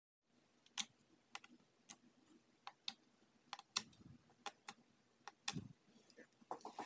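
Crystal-clear slime being pressed and squished by fingers, giving faint, irregular sharp clicks, about two a second, with a duller squelch about two-thirds of the way through.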